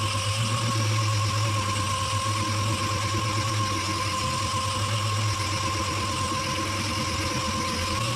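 Motor-driven machine running steadily, with a low hum and a constant high whine.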